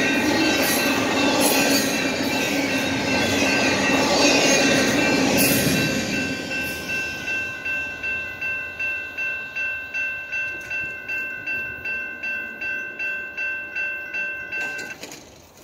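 Double-stack intermodal freight cars roll past with loud rail noise that fades once the last car clears, about six seconds in. A railroad crossing bell then rings clearly at about two strikes a second and stops abruptly near the end.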